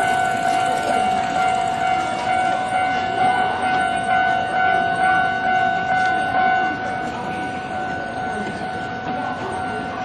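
Japanese level crossing's electronic warning bell ringing steadily. About seven seconds in, it drops to a quieter level, the reduced volume this crossing switches to once the barriers are down.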